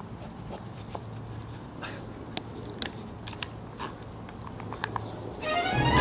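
Scattered light clicks and crunches over a low steady hum. Music comes in near the end with a run of rising notes.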